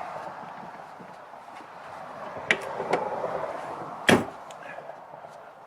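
Hand work on the rear window hinge: rustling handling noise, two light clicks about halfway, then a sharp knock about four seconds in.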